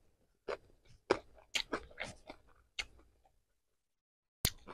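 Close-miked mouth chewing crunchy food: a quick run of crisp crunches and mouth smacks for about two and a half seconds, then a pause and one sharp click near the end.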